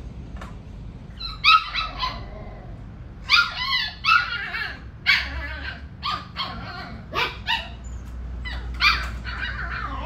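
Border collie puppies yipping and barking: a run of short high-pitched yips in several quick clusters.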